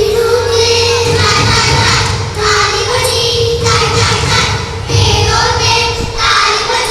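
Children singing a song in phrases of held notes, with music behind them, echoing in a large hall.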